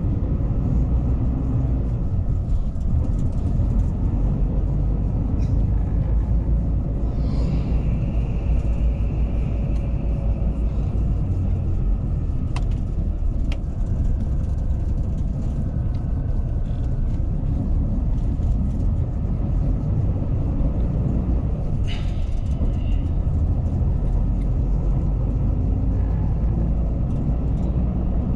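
Intercity coach running at steady speed, heard from inside the passenger cabin: a constant low rumble of engine and road noise, with a few brief clicks and rattles from the cabin.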